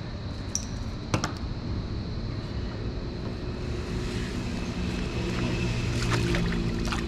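Low engine hum of a passing vehicle, made of several steady tones, coming in about two and a half seconds in and growing slightly louder. A few sharp clicks and small rattles sound over it, one about a second in and a cluster near the end.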